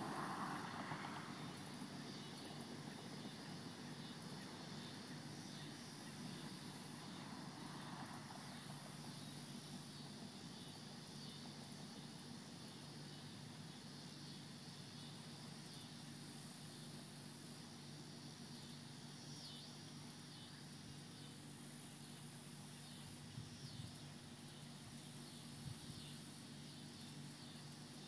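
Faint outdoor evening ambience: a steady low hum with insects chirping faintly. A distant engine swells and fades at the start.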